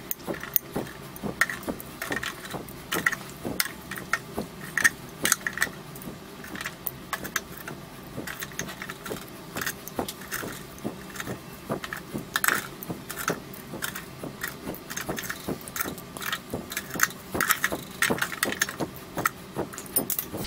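Metal kitchen tongs clicking and scraping against an air fryer's wire grill basket and a plate as cooked chicken kebab pieces are picked out one by one: a long run of irregular light metal clinks.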